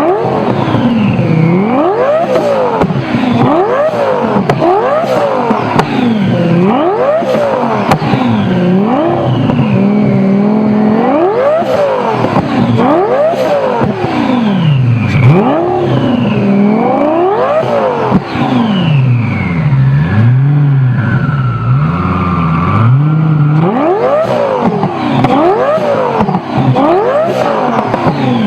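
A forced-induction car engine revved again and again in quick blips, every second or two. Each rise in revs is followed by a high whistle sliding down in pitch.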